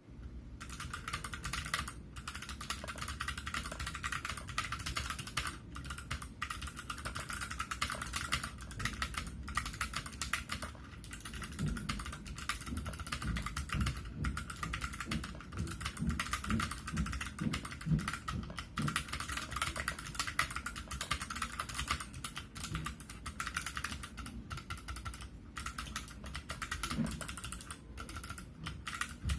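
Continuous fast typing on a Tada68 mechanical keyboard with Kailh Box Pale Blue clicky switches, PBT keycaps and a low-profile aluminium case: a dense, unbroken stream of sharp clicks.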